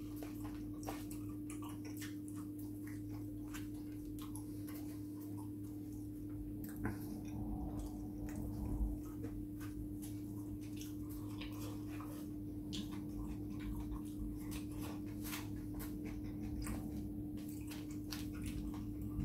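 Close-up eating sounds: chewing and mouth noises, with a plastic fork clicking and scraping in polystyrene takeaway boxes, as irregular small clicks and taps over a steady low hum. A brief low thump comes about nine seconds in.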